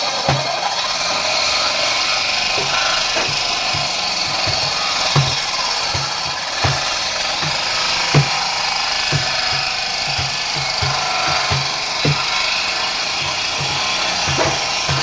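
Table saw ripping an old timber beam lengthwise: a steady, loud hiss of the blade cutting through the wood as the beam is pushed along the table.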